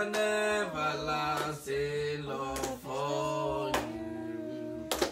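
A man singing slowly in long held notes, the pitch moving down and back up from note to note.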